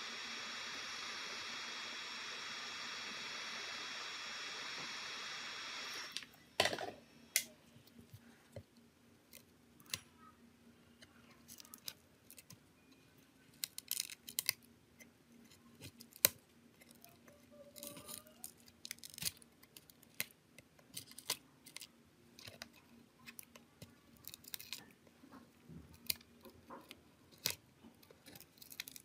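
A steady hiss with two thin high whistling tones, like a small blower, cuts off about six seconds in. It is followed by scattered light clicks and taps of small tools and parts being handled while an old Huawei phone is worked on.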